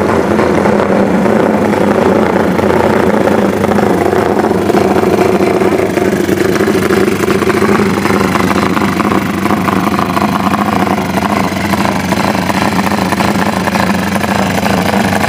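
Honda Tiger single-cylinder four-stroke engine, freshly rebuilt and bored out to 270cc, running steadily. It is still in its break-in period after the rebuild.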